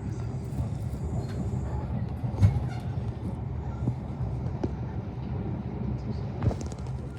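Diesel locomotive engine idling steadily, with a few short knocks over it.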